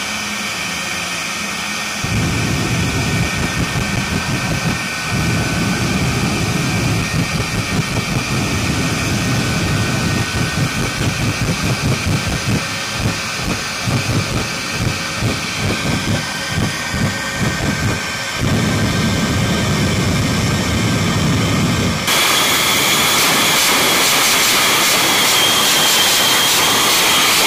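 Shockwave jet truck's turbojet engines running with a steady high whine. A deep rumble comes in and surges in uneven bursts as the afterburners flare. About 22 seconds in it jumps to a much louder, steady rushing blast at full afterburner.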